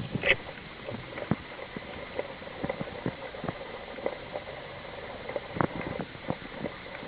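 A mini USB vacuum cleaner's small motor running with a faint steady whine, over irregular light clicks and ticks, the sharpest a third of a second in.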